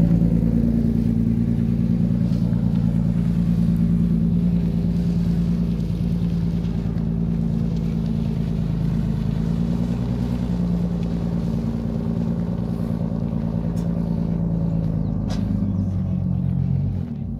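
A car engine running steadily at low revs close by, its pitch wavering slightly, stopping abruptly near the end.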